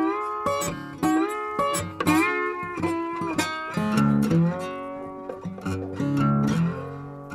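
Background music on guitar: plucked notes that slide up into pitch, joined about four seconds in by a lower, steadily plucked accompaniment.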